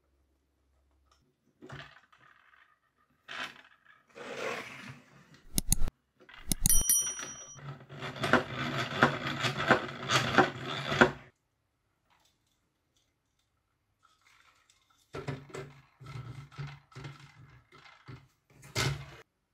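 Toy sewing machine's plastic mechanism running, the needle clacking about three times a second over a steady low hum. It runs twice: from about six to eleven seconds in, and again from about fifteen seconds in. Sharp clicks with a short metallic ring come just before the first run.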